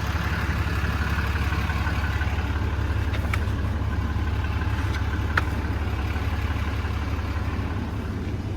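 6.7-litre Cummins inline-six turbodiesel idling steadily, a constant low rumble, with two faint clicks about three and five and a half seconds in.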